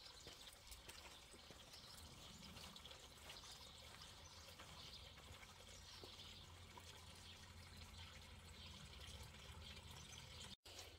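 Near silence with a faint, steady trickle of water from a garden fountain that has little water in it.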